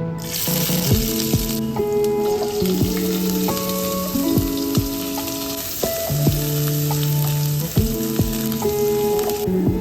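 Food sizzling as it fries in a pan, a steady hiss that starts just after the beginning and stops abruptly near the end, over soft plucked-guitar background music.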